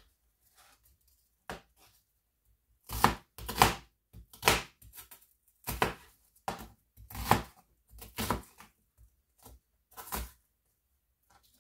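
Kitchen knife rough-chopping an onion on a plastic cutting board: a string of irregular chops, some in quick pairs, with short pauses between.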